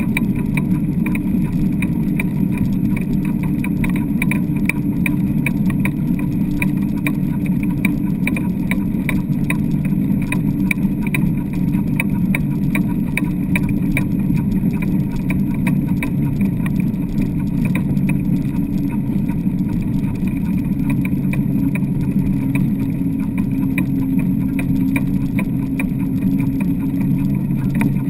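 Dry-land dog rig rolling over hard beach sand as a four-husky team pulls it, a steady low rumble with a fast, constant rattle.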